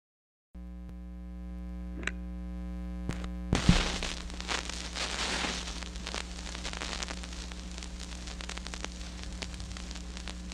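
Vinyl LP on a turntable before the music: a steady electrical hum with a few faint clicks, then the stylus drops into the groove about three and a half seconds in, followed by steady surface hiss and crackle of the lead-in groove.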